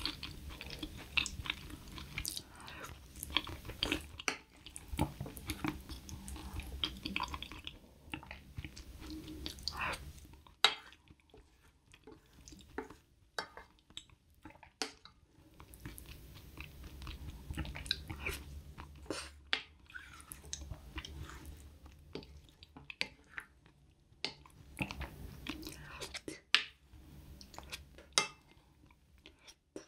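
Close-miked eating of rice porridge: a spoon clicking and scraping against a ceramic bowl, with soft wet chewing and swallowing.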